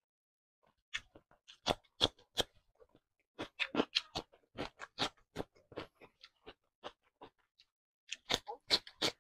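Close-up crunching and chewing of a crisp raw cucumber slice: sharp, wet crunches begin about a second in and go on in quick, irregular bites, with a dense run of loud crunches near the end.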